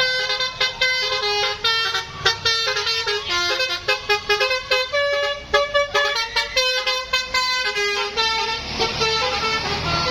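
Bus telolet horn, a multi-tone air horn, playing a quick tune of short notes that change pitch one after another. Near the end the notes thin out under a rising rush of noise.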